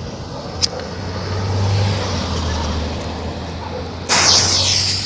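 A motor vehicle's low engine hum swelling and fading, with a loud rushing noise starting about four seconds in.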